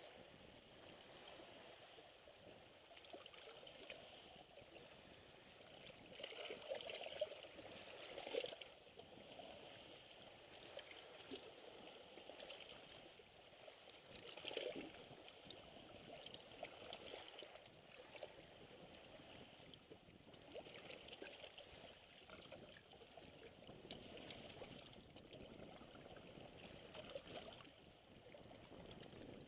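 Faint lapping of small sea waves among shoreline rocks, water trickling and splashing softly, with a few slightly louder splashes a quarter of the way and halfway through.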